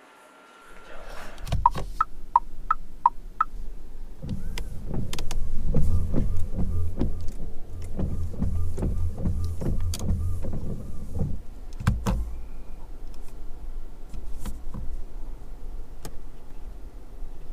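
Windshield wipers sweeping back and forth, the wiper motor running with a regular knock about twice a second, ending with a loud clunk. Before that comes a short run of electronic chime tones stepping up in pitch.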